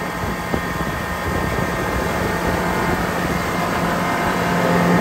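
A 70-horsepower outboard motor running steadily at speed with the skiff on the plane, a constant engine drone over the rush of water and spray. It grows a little louder near the end.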